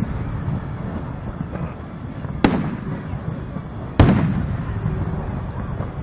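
Aerial fireworks shells bursting: two sharp booms about a second and a half apart, each with a trailing echo.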